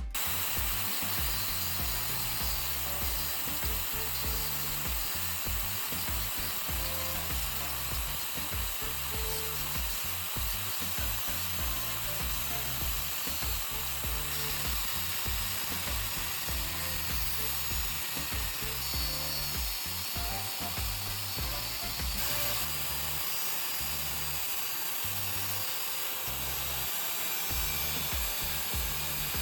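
A power tool running steadily through the workpiece, over background music with a beat-like bass line.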